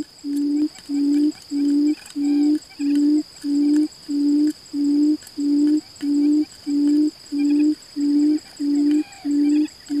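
Buttonquail's low hooting call: one deep, even hoot repeated about one and a half times a second, very steady in rhythm. A faint, steady high whine runs behind it.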